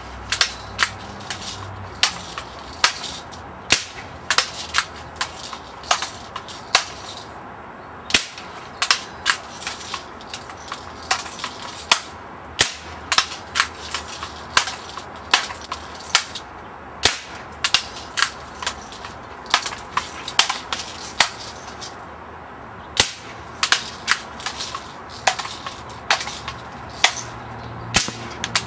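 Camera shutter firing again and again: sharp clicks at an uneven pace of about two a second, sometimes in quick runs, with short pauses between runs.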